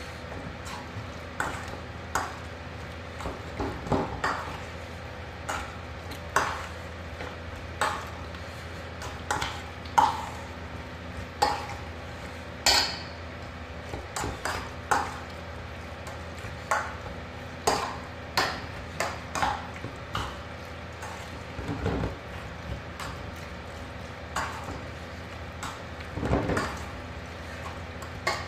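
Metal spoon stirring a thick mayonnaise-and-onion sauce in a stainless-steel bowl, clinking and scraping against the bowl at an irregular pace, about one or two knocks a second. A steady low hum runs underneath.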